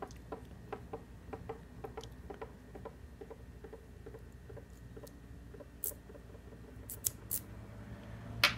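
Small irregular metal clicks and taps from a Kwikset SmartKey lock being handled and turned over, with a few sharper clicks in the second half, the loudest near the end.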